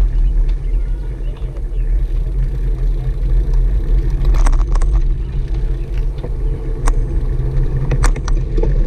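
Wind buffeting and road rumble on the microphone of a camera riding on a moving bicycle. A few sharp clicks or knocks come about halfway through and again near the end.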